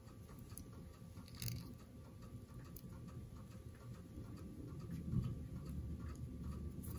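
Faint handling sounds of fly tying at a vise: small scattered ticks and rustles as fingers and a bobbin wrap thread around a foam ant body, over a low steady hum.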